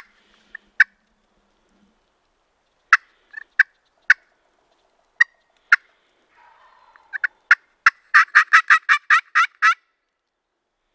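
Turkey calling: single sharp clucks spaced a second or so apart, then near the end a quick, even run of about eight yelping notes, roughly five a second.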